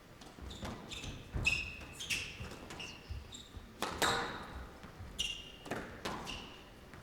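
Squash rally: the hollow rubber ball knocked by rackets and smacking off the court walls at an irregular pace, with short, sharp squeaks of players' shoes on the wooden court floor.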